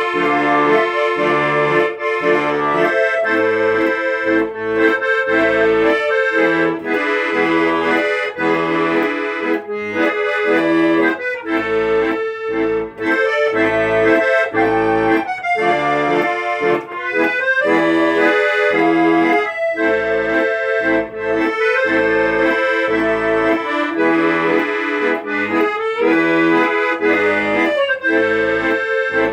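Instrumental music: a held, sustained melody over a steady, regular bass-and-chord beat.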